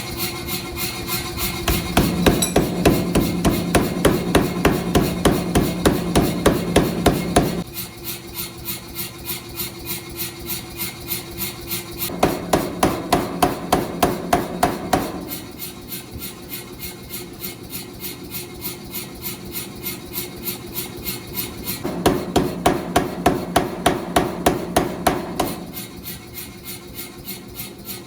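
Power hammer pounding a hot steel railroad anchor in a steady rhythm of about three blows a second. The blows grow heavier and louder three times, for a few seconds each: about two seconds in, near the middle, and again near the end.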